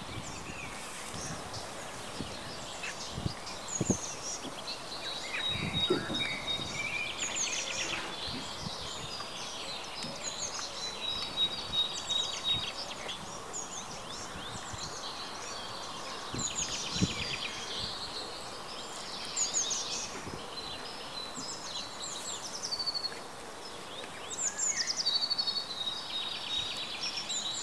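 Small birds chirping and calling over one another, with a thin steady high buzz coming and going. A few low thumps, the loudest sounds, about four seconds in and again past the middle.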